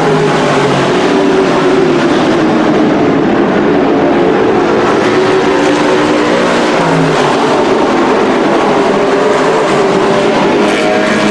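Race trucks' engines running together around a dirt oval: a loud, steady drone whose several pitches waver and shift as the trucks lap.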